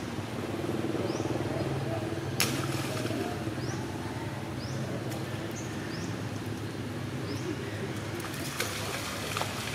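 A bird giving a short, high, rising chirp over and over, about once every second and a quarter, over a low steady hum, with one sharp click about two and a half seconds in.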